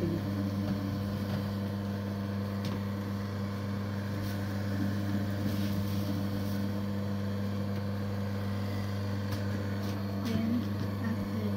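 Electric mochi maker's motor running with a steady low hum as it kneads steamed glutinous rice into mochi, with a few faint clicks.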